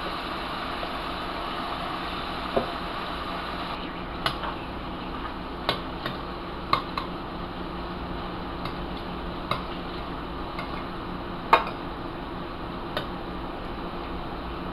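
A fork clinking against a stainless steel skillet as shrimp are stirred and turned in melted butter: about a dozen sharp, irregular taps, the loudest near the end, over a steady hiss.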